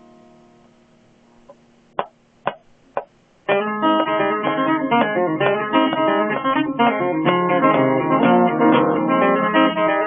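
Acoustic guitar: a chord rings and fades almost to quiet, then three sharp taps come half a second apart, and quick, busy playing starts again about three and a half seconds in.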